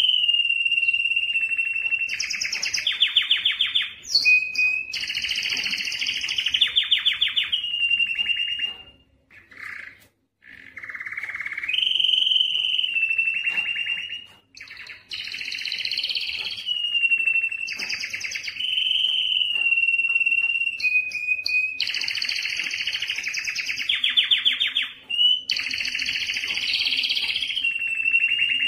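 Male domestic canary singing its courtship song: long runs of fast trills and rolls alternating with held whistled notes, high-pitched throughout, with a short break about nine seconds in.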